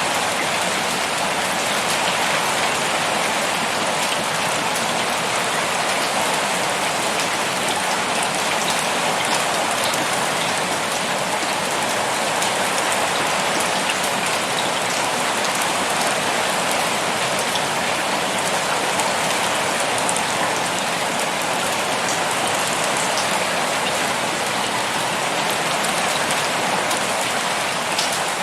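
Steady rain falling: an even, dense hiss with scattered individual drop ticks, unchanging throughout.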